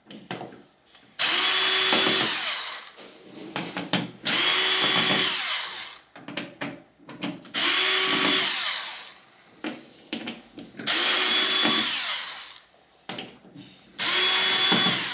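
Cordless drill/driver running in five short runs of about a second and a half each, backing out the screws that hold a TV's power supply board to its metal back panel. Small clicks and clatter come between the runs.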